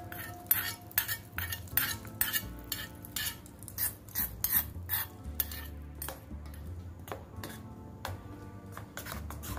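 Spoon stirring a tempering of oil, urad dal, cumin and mustard seeds into thick coconut chutney in a bowl, clinking and scraping against the bowl about three times a second, thinning out in the last few seconds.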